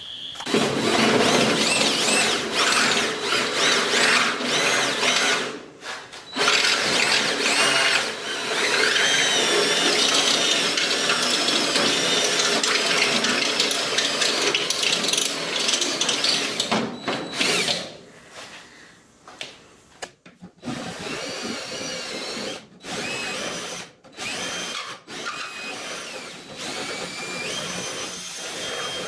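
Cordless drill cutting a hole through a sheet-metal firewall, with a high, wavering whine from the bit in the metal and a brief stop about six seconds in. After about seventeen seconds it runs more quietly in short spells with brief stops between them.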